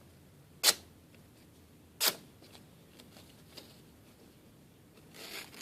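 Kershaw Thermite assisted-opening folding knife clicking sharply as it is flicked open or locked, twice, about 0.7 s and 2 s in; its action is still a little stiff, being new out of the box. A rustling scrape of handling comes near the end.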